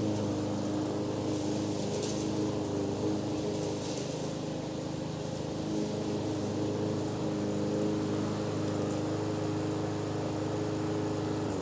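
Petrol lawn mower engine running steadily at a constant pitch as it cuts grass; right at the end its pitch starts to fall as it winds down.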